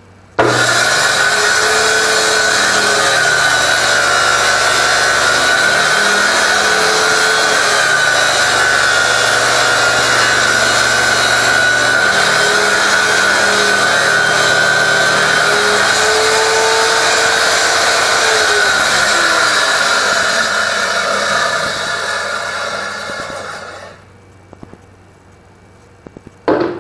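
Table saw switching on abruptly, triggered by an automatic sensor, then running and cutting through a wooden panel pushed across it. About twenty seconds in the motor cuts off and the blade winds down, fading out over a few seconds. A short knock near the end.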